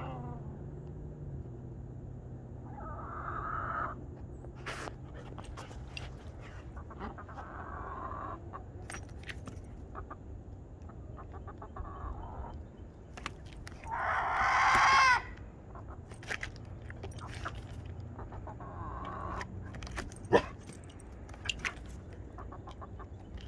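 Chickens clucking in short calls every few seconds, with one loud, longer rooster crow about fourteen seconds in. A sharp tap comes shortly after.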